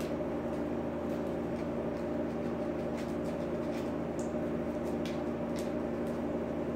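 Steady mechanical hum with several fixed tones from a kitchen appliance or ventilation, with a few faint ticks of crunchy brown sugar crumbled by hand into a stainless steel bowl.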